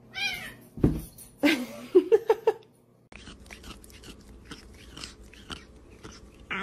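A thump about a second in among a few short, loud voice sounds. Then, after a cut, a tabby cat mouthing at the phone right against the microphone: a run of soft licking and chewing clicks, about three or four a second.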